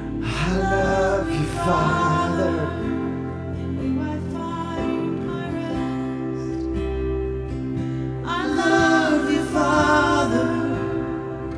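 Slow live worship music: sustained keyboard chords and acoustic guitar, with a singing voice in two phrases, one at the start and another about three-quarters of the way through.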